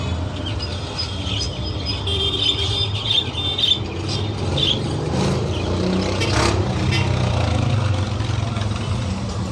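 Budgerigars chirping in short high calls in the first half, over a steady low rumble. A few clicks and rustles near the middle, as wood shavings are put into a nest box.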